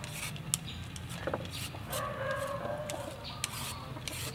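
A hen calling for about a second midway, over quick scraping strokes of a julienne peeler shredding a raw carrot.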